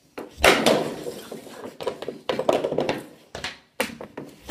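Hockey pucks being shot with sticks: several sharp knocks of stick on puck and of pucks striking hard surfaces, the loudest about half a second in, each echoing briefly in a small room.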